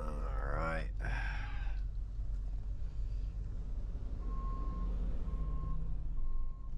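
Truck's reversing alarm beeping at a single steady pitch, starting about four seconds in, four beeps at a little over one a second, over the low running rumble of a truck engine.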